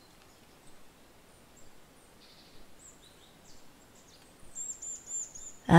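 Faint background ambience of small birds chirping, with a quick run of four high chirps about five seconds in.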